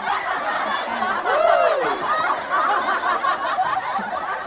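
People laughing and chuckling, with one short voice sound rising and then falling in pitch a little over a second in.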